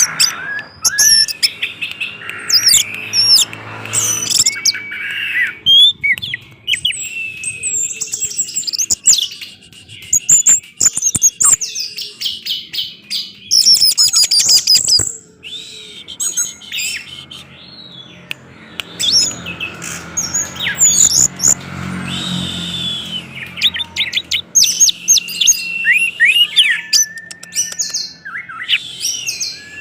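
Orange-headed thrush singing continuously: a fast, varied run of high whistles, quick up-and-down glides, rapid note strings and trills with only brief pauses.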